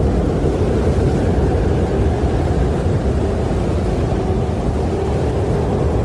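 Wind blowing steadily, a low, even rush and rumble that holds without gusts or breaks.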